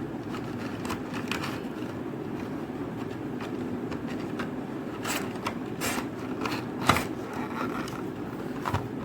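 Toothbrush packaging being handled: scattered scrapes and clicks, with a sharper knock about seven seconds in, over a steady low background noise.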